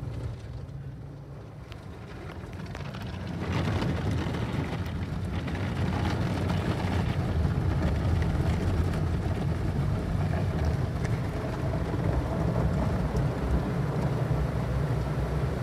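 Ryko SoftGloss XS car wash's rotating cloth brushes scrubbing over the car amid water spray, heard from inside the cabin. It builds over the first few seconds, then goes on as a loud, steady swishing wash.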